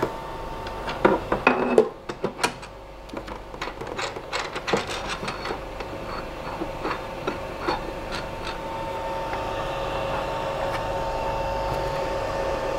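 Clicks and knocks of a plastic resin vat being set into a resin 3D printer and its thumbscrews tightened by hand. A steady hum with two even tones grows louder in the second half.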